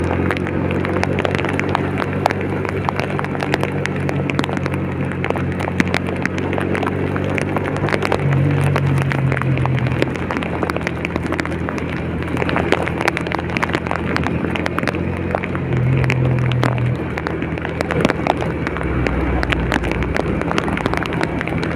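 A vehicle's engine running while travelling in heavy rain, its hum shifting pitch a couple of times, under a dense, irregular ticking of raindrops striking the vehicle or rain gear.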